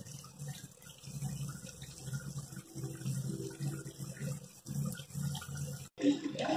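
Spring rolls deep-frying in hot oil in a steel kadai, the oil sizzling and crackling with fine bubbles. The sound drops out briefly about six seconds in.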